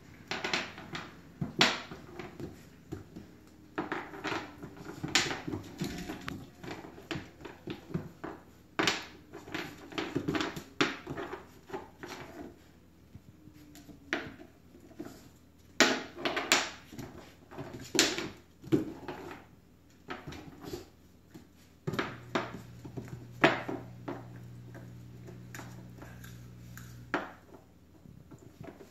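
Scattered knocks and clicks on a hardwood floor as a poodle puppy bats, drops and chews a frozen teething ring, some in quick clusters. A low steady hum joins for a few seconds in the second half.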